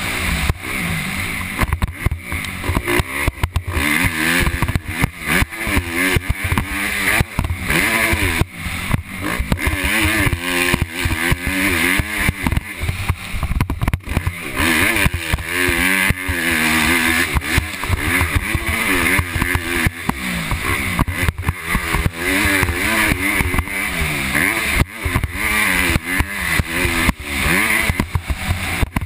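Motocross bike engine revving up and down as it is ridden hard around a dirt track, heard from the rider's helmet camera. Its pitch climbs and drops again and again with the throttle and gear changes, over constant buffeting and bumps.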